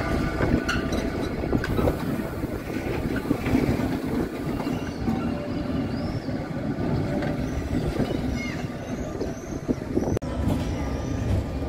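Sóller's vintage wooden electric tram rolling past on its street track, steel wheels rumbling on the rails, with a few clicks.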